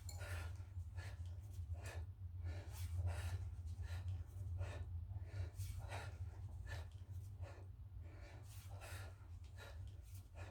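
A man breathing hard in a steady rhythm, about one sharp breath a second, from the exertion of lifting a kettlebell over and over. A steady low hum runs underneath.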